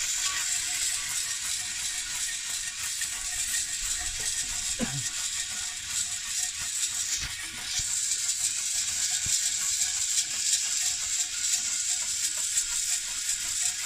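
Maize kernels rattling and crackling against a pot being stirred and shaken over a wood fire as they roast for popcorn, a dense run of small clicks.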